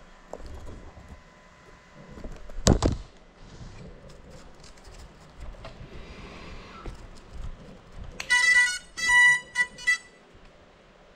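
A small indoor FPV drone hits something with one sharp thud about three seconds in, with no motor whine, so the drone is not under power; it then lies still. Near the end comes a quick run of high electronic beeps lasting about two seconds.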